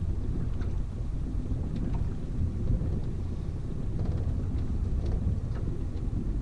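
Steady low rumble of wind buffeting the microphone on a fishing boat underway while trolling, with a few faint ticks.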